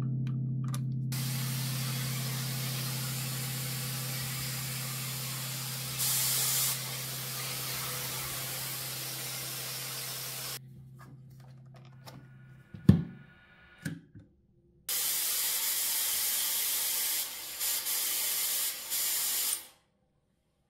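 Hot air styler blowing, a steady rush of air that switches on about a second in and stops after about ten seconds. A loud knock and a few clicks follow, then the air rush starts again with short cut-outs near the end.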